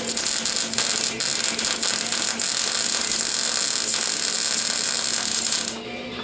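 Welding arc crackling steadily as a bead is run on a race car's exhaust pipe, cutting off abruptly near the end when the arc is broken.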